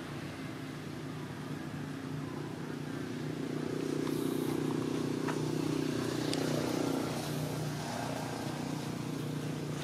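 A motor vehicle engine running steadily, growing louder about three seconds in and easing off after about seven seconds, with a few faint ticks of leaf litter.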